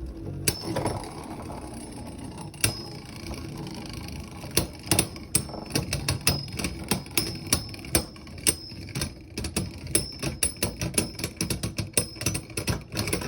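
Beyblade Burst spinning tops whirring in a plastic stadium, with sharp clacks as they collide. The clacks come thicker and faster in the second half.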